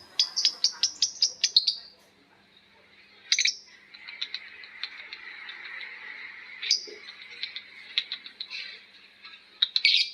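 Lovebirds calling: a fast run of sharp, shrill chirps, about seven a second, for the first couple of seconds, then after a short pause a continuous high chattering broken by single loud shrieks. This is the long chattering song that Indonesian keepers call 'ngekek'.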